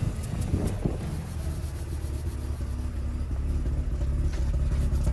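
Mazda RX-8's freshly rebuilt two-rotor 13B rotary engine idling just after its first start, its exhaust growing louder as the microphone nears the tailpipe. The exhaust note is uneven, made rougher by a straight pipe in place of the catalytic converter.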